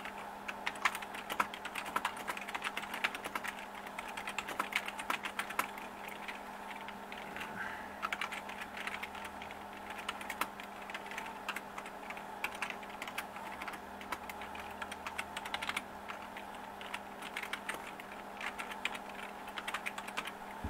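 Continuous typing on a Memorex TS-1000 Spillproof keyboard: a fast, irregular run of key clicks and key bottoming-out taps.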